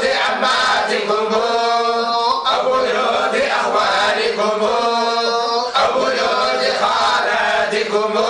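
Collective Quran recitation in the Moroccan style: a group of men chanting the verses in unison. Long held, gently bending notes come in phrases of a few seconds, with short breaks between them.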